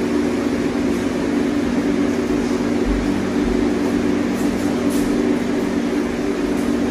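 Steady machine hum made of several held low tones, like a room air conditioner or fan running, with faint chewing sounds over it.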